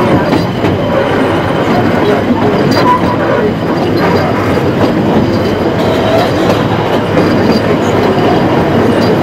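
Narrow-gauge heritage train running along the track, heard from an open carriage window: a steady rumble with the rattle and clatter of the carriage wheels on the rails.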